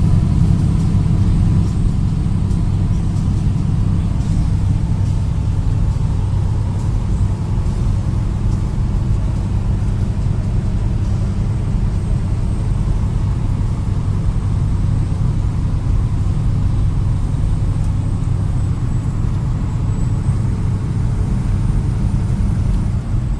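Steady engine drone and road noise heard from inside a truck's cab while it drives along a highway.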